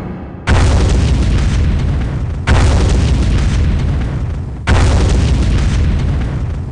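Three deep explosion booms, about two seconds apart, each hitting suddenly and dying away slowly.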